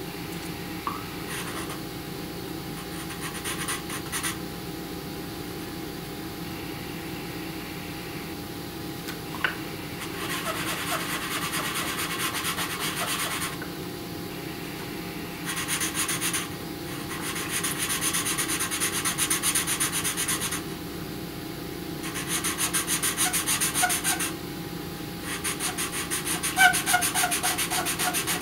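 Pastel pencil scratching over paper in quick back-and-forth strokes, in spells of a few seconds with short pauses, mostly in the second half. A faint steady hum runs underneath.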